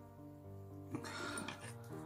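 Background piano music in a steady rhythm of notes. About a second in, a sharp click starts a short burst of noisy rustling and clatter that lasts just under a second.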